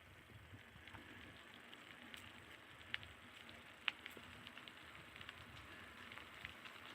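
Faint, steady hiss of a bicycle rolling along with scattered small ticks and clicks, two sharper ticks about three and four seconds in.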